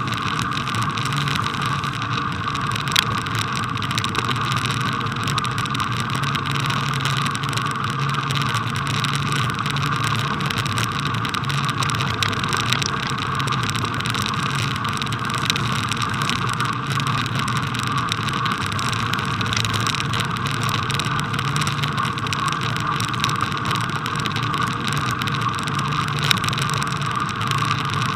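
Steady rolling noise of a bicycle ridden over packed snow, picked up by a camera mounted on the bike, with a few small knocks from the mount along the way.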